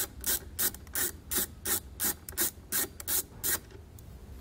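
Ratchet wrench with a 10 mm socket backing a nut off a battery terminal stud. Its pawl clicks in short, regular bursts about three times a second, then stops about three and a half seconds in.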